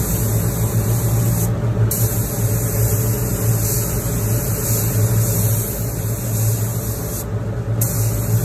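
Air spray gun hissing steadily as it sprays paint onto a small plastic motorcycle part, the hiss stopping briefly twice as the trigger is let off. A steady motor hum runs underneath.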